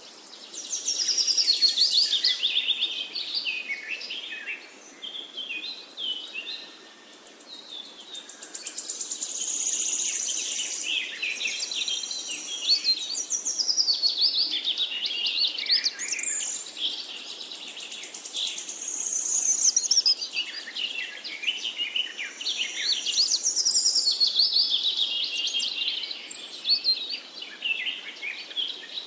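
Songbirds singing and calling throughout, with overlapping chirps, quick high trills and whistled rising and falling notes, over a faint outdoor hiss.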